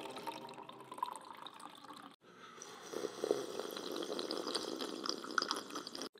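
Coffee being poured from a glass carafe into a ceramic mug, a thin steady trickle. After a cut about two seconds in come quieter small sounds of sipping from the mug.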